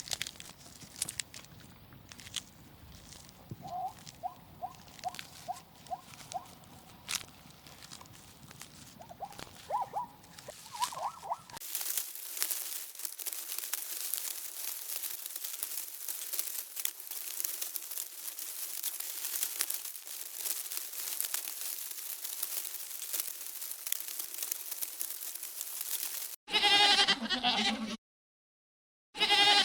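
Bleating livestock: two loud bleats near the end. Before them come quieter pulsed calls with clicks, then a long stretch of steady hiss with fine crackling.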